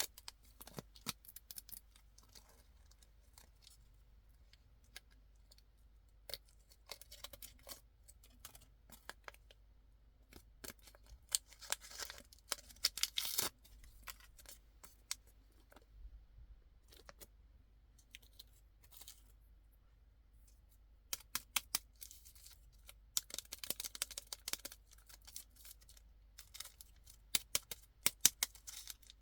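Candy packaging being handled and opened: irregular bursts of crinkling and tearing plastic wrappers, with quiet pauses between.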